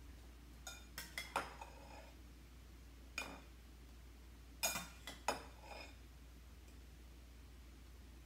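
Metal serving spoon clinking and scraping against a ceramic dinner plate and serving bowl as corn is dished up: scattered brief clinks, a cluster about a second in and more around five seconds in.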